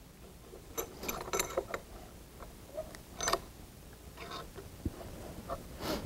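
A small bench vise being closed on a wooden carving blank: a scatter of light metallic clicks, rattles and knocks, bunched about a second in, then single knocks around three seconds, past four seconds and near the end.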